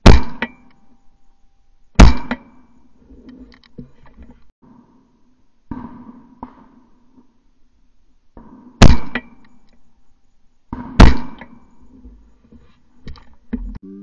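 Four loud, sharp knocks in two pairs, each pair about two seconds apart, each knock with a brief ring, and softer knocks and clatter between them.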